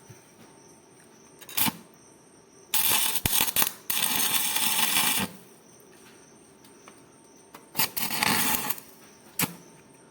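Electric arc welding on iron: the arc crackles and sizzles in bursts as the rod is struck and burns. One run lasts about two and a half seconds with a short break in the middle, and a shorter one comes near the end, with a few sharp clicks in between.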